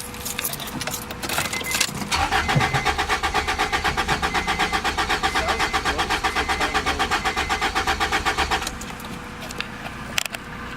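Acura Integra engine being cranked by its starter motor, turning over in an even rapid pulse for about six seconds without catching, then stopping. The owners find the engine is getting no spark despite a new distributor cap and rotor.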